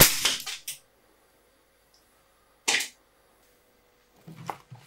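A single shot from an SMK XS20 .177 air rifle: a sharp crack with a short ringing tail as the pellet strikes and dents the steel tube of a toy pram's frame. A brief scrape follows a few seconds later, and near the end there are soft knocks as the dented tube is handled.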